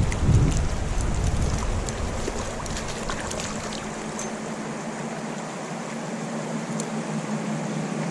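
Wind buffeting the microphone for the first few seconds, then easing off, over the steady rush of creek water.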